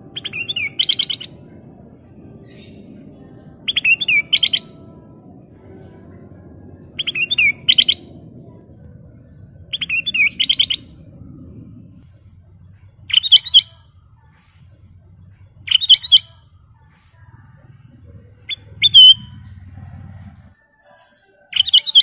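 Ruby-throated bulbul (kutilang emas) singing short, rapid warbled phrases of half a second to a second each, repeated about every three seconds, eight times in all. A faint low hum lies underneath and stops near the end.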